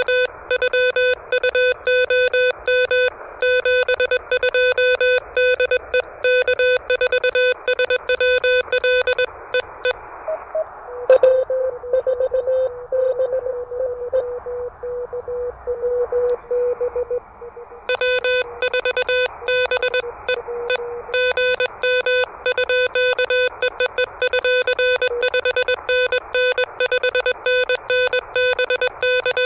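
Morse code from an Elecraft KH1 handheld transceiver: a steady, buzzy sidetone keyed rapidly in dits and dahs. About 11 seconds in, after a click, it gives way to a weaker, slightly wavering received Morse signal over receiver hiss. The loud keyed sidetone starts again about 18 seconds in.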